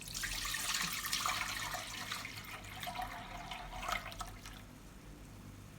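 A litre of milk being poured into a pot, a steady splashing pour that thins out and stops about four seconds in.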